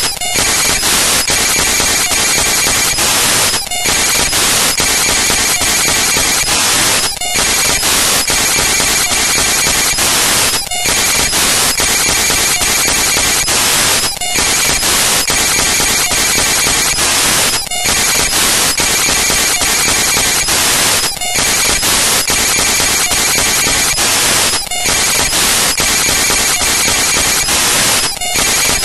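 Loud, steady static-like noise spread evenly across the whole range, with faint steady tones in it. It drops out briefly about every three and a half seconds, repeating like a loop.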